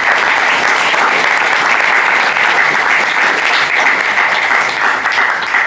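Audience applauding, a steady clapping that holds through and falls away right at the end.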